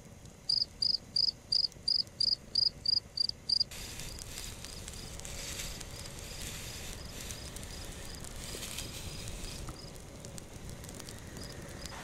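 A cricket chirping steadily, about three high chirps a second, loud at first. About four seconds in, a steady hiss with faint crackling from the campfire comes up, and the chirps continue more faintly beneath it.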